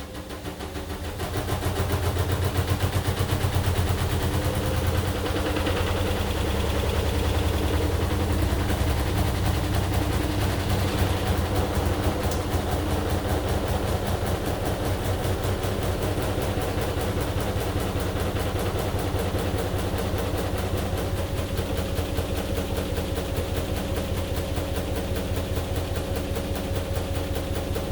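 AQUA AQW-DX12M front-loading drum washing machine running. It picks up over the first couple of seconds, then the drum turns steadily with a fast, even rhythmic thumping over a low hum.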